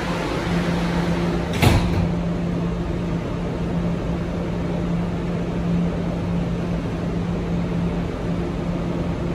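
Kawasaki R211A subway train standing at the station, giving a steady electrical hum over a bed of noise. One sharp click comes about a second and a half in.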